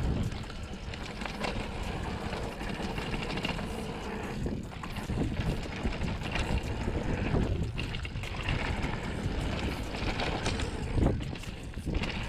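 Wind rushing over the microphone while a hardtail mountain bike rides a dirt trail, with the rumble of the tyres and scattered knocks and rattles from the bike, the sharpest jolt near the end.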